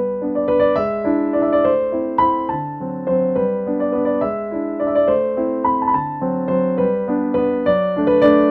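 Background music: a gentle piano melody over chords.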